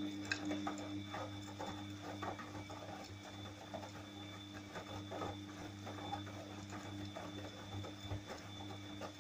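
Siemens iQ300 front-loading washing machine running with a load of laundry turning in the drum on its newly replaced drum bearings: a steady motor hum with irregular light knocks and clicks from the tumbling load.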